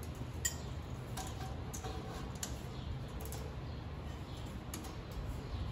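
Light, scattered metallic clicks and taps of a welded exhaust test pipe being worked into place against the car's underbody, over a steady low hum.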